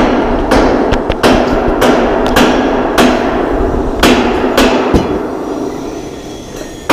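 Hammer blows in a steady run of about two strikes a second, each with a short ringing tail, dying away about five seconds in.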